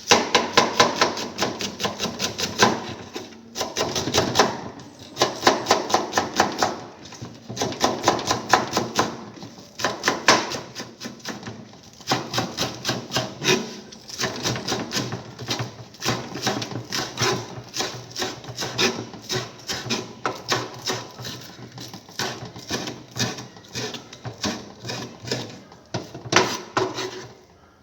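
Knife chopping fast on a cutting board, rapid strokes several a second in long runs with a few brief pauses, as seasoning is chopped up.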